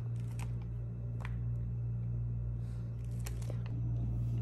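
A steady low hum, with a few faint, light clicks now and then.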